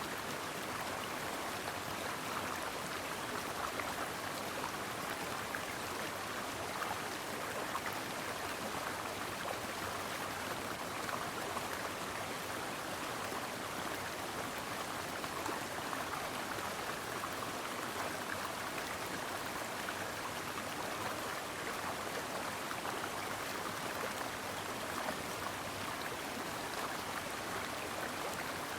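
A brook flowing steadily, with an even rush and splash of water.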